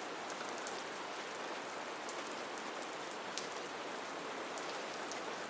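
Steady rain falling, an even patter with faint scattered drop ticks.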